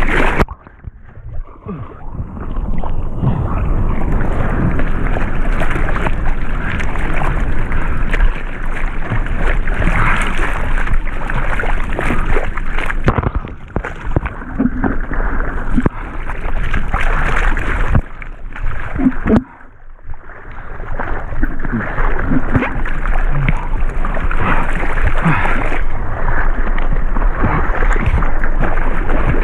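Water splashing and rushing around a surfboard as a surfer paddles, hands stroking through the water beside the board-mounted camera. The sound drops away twice, briefly just after the start and again about two-thirds in.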